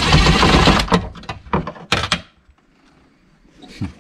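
Cordless DeWalt driver running hard on a torqued-down bolt holding the IMA battery pack down, a loud rapid rattle for about the first second, followed by two short knocks.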